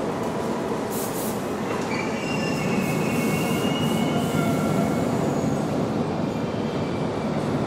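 Subway train running through the station with a steady rumble, thin high wheel squeals about two to four seconds in, and brief hissing clatters near the start.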